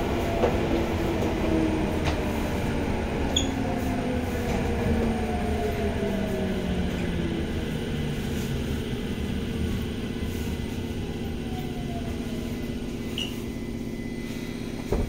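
Tokyo Metro Tozai Line electric train heard from inside the car, slowing down. Its motor whine falls in pitch over about the first ten seconds over the rumble of wheels on rail, and the running noise then eases to a quieter, steady level. A short knock comes near the end.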